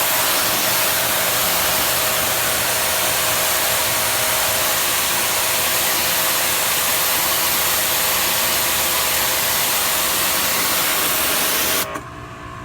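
Ryobi 2300 psi electric pressure washer spraying through a 15-degree nozzle tip: a loud, steady hiss of high-pressure water over the hum of the motor and pump. The spray cuts off suddenly near the end.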